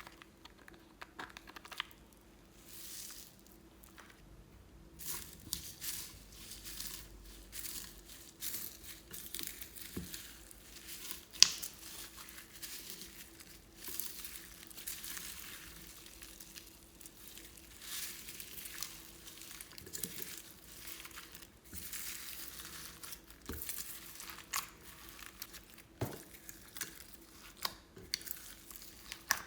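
Glossy slime being squished, folded and stretched by hand, giving irregular sticky clicks and crackles, with one sharper click about eleven seconds in.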